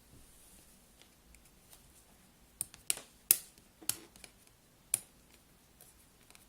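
A handful of sharp clicks and taps from hands handling an iPhone box and its packaging, about five of them between roughly two and a half and five seconds in.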